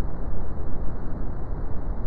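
Steady brown noise: an even, deep hiss weighted toward the low end, with little above the midrange.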